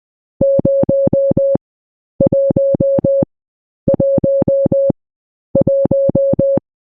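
Morse code sent as a steady beeping tone, keyed hard on and off in repeated groups of five short equal beeps, four groups in all. Each group of five dits is the Morse digit 5.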